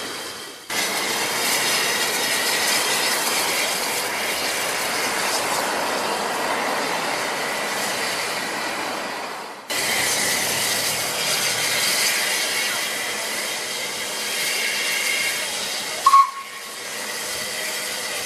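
Narrow-gauge steam tank locomotive No. 30190 (Lyd) hissing steam at a standstill, with one brief, loud toot of its steam whistle about sixteen seconds in.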